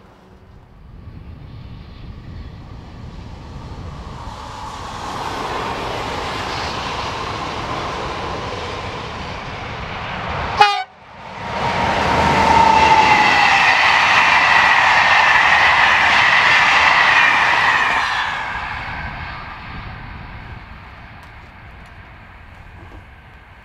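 A train approaching and running past, growing louder over several seconds. The sound breaks off abruptly about ten seconds in, then comes back louder with steady high-pitched tones over the noise of the passing train, and fades away after a few seconds.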